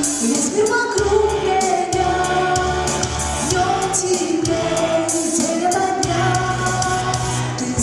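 A young female singer singing a pop song, holding long notes over a recorded backing track with a steady bass line.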